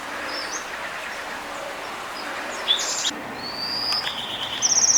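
Wild songbirds chirping and calling: a few separate short high calls, one sliding in pitch, and a fast high trill near the end that is the loudest, over a steady outdoor hiss.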